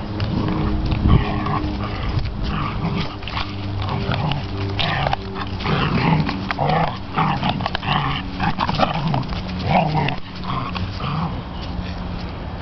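Two border collies growling in play while tugging on a tug toy; the growls come in short rising-and-falling bouts, thickest in the middle. A steady low hum runs underneath.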